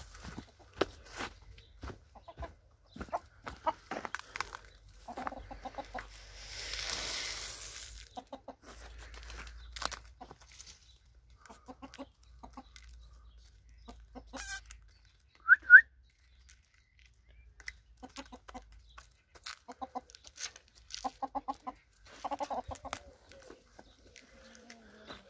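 Domestic hens clucking in short runs of low notes while they peck, with scattered small clicks and taps. A brief rustling hiss comes about six seconds in. About fifteen seconds in, two short, sharp, high chirps are the loudest sound.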